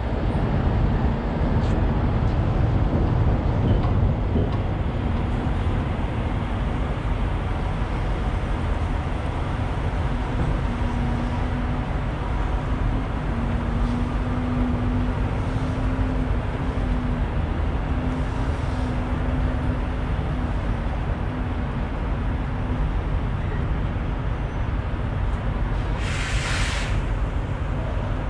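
Steady low rumble of a running vehicle engine with a faint wavering hum, and a short burst of hiss near the end.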